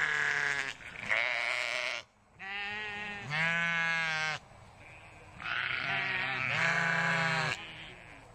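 Llama calling: six drawn-out calls of about a second each, steady in pitch and coming in three pairs.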